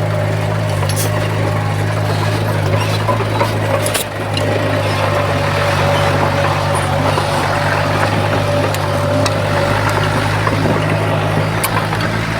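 Komatsu bulldozer's diesel engine running steadily under load, with a few sharp clicks scattered through and a brief dip about four seconds in.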